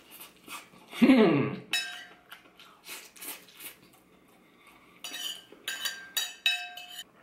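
Metal spoon scraping and clinking against a ceramic plate of rice, with a cluster of ringing clinks near the end. About a second in, a short hum from the eater falls in pitch.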